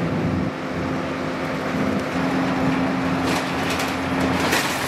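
Moving bus heard from inside the passenger cabin: a steady engine hum and road noise, with a few sharp rattles and knocks a little past halfway.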